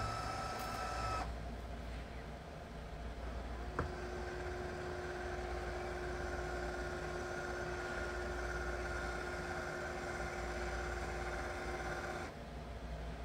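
Litter-Robot 3 Connect's globe drive motor turning the globe back to its home position at the end of a cleaning cycle. A steady motor hum stops about a second in, a click comes near four seconds, then a steady motor whine runs and stops shortly before the end.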